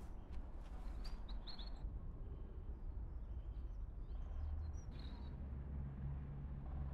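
Small songbirds chirping in short high calls, a few about a second in and more around four to five seconds in, over a steady low rumble.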